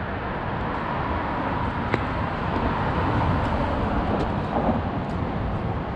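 Steady road traffic noise, a continuous rush of cars on the highway, with a light click about two seconds in.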